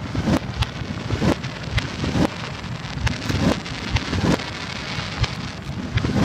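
Fireworks display played in reverse: aerial shell bursts, each boom swelling up out of its own echo and cutting off sharply. The booms come about every half second to second over a continuous rumbling hiss.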